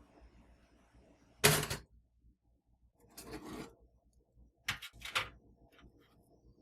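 Household handling noises: a sharp knock about a second and a half in, a short rustling or sliding sound a little after three seconds, and two quick clicks near five seconds, typical of doors or drawers being worked.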